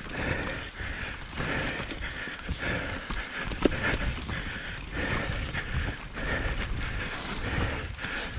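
Mountain bike ridden fast down a forest dirt trail: tyres rolling over dirt and roots, and the bike rattling with frequent knocks over bumps. The sharpest knock comes about three and a half seconds in.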